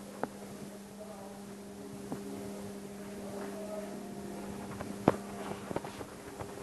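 A steady low hum with a few light clicks and knocks, and one sharper click about five seconds in.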